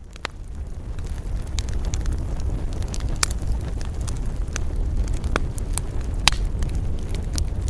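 Campfire crackling, with irregular sharp pops and snaps over a steady low rumble of wind, fading in over about the first second.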